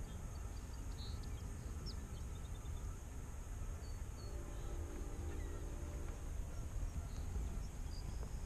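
Outdoor salt-marsh ambience: wind buffeting the microphone with an uneven low rumble, faint scattered bird chirps, and a steady high hiss. A faint hum joins in about halfway through.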